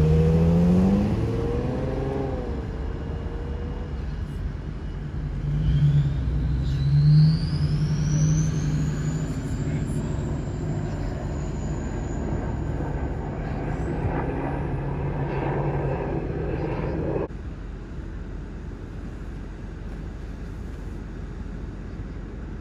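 A motor engine running with a low hum, rising in pitch at first. Later a thin high whine climbs steeply and then holds. The engine sound cuts off suddenly near the end, leaving steady background noise.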